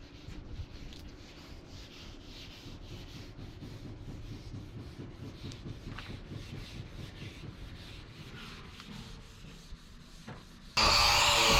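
Hand sanding or rubbing in quick, even strokes, about four a second. Near the end a power tool starts up, much louder and steady.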